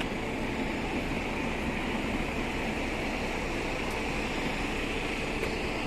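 Steady, even background noise with a slight hiss and no distinct events.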